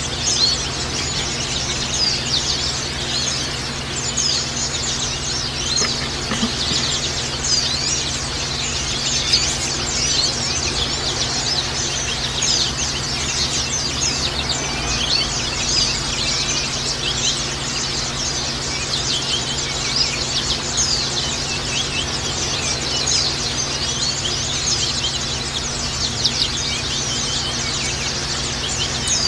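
A flock of white-eyes (pleci, Zosterops) chirping and singing without a break, many short high chirps overlapping, over a steady hiss and low hum.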